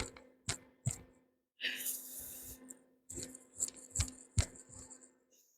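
Aerosol spray paint can in use: a hiss of spray lasting about a second near the middle, among sharp clicks and taps from handling the can and the piece.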